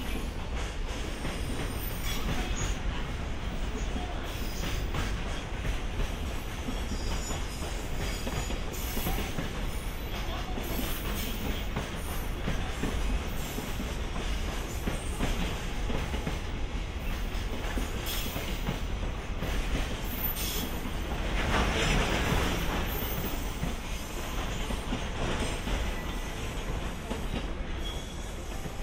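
A JR Freight train hauled by an EH500 electric locomotive rolling through the yard. Its wheels click steadily over rail joints, with a louder stretch a little over 20 seconds in.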